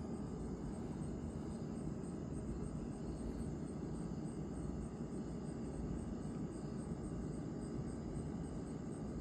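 Crickets chirping steadily at night, a high regular pulse of about three chirps a second, over a steady low rumble.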